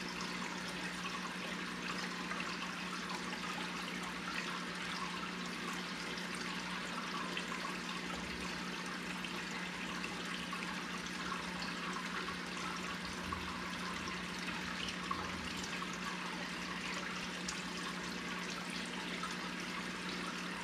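Aquarium water bubbling and trickling steadily as the tank's filter and aeration stir it, with a steady low hum underneath.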